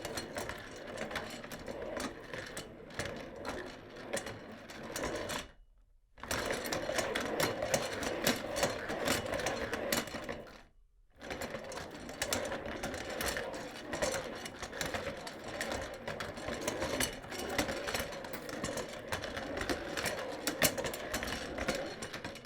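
Office chair rolling on its casters from medium distance: a continuous rattling roll full of small clicks. It comes in three runs, split by two brief silences about a third and halfway through.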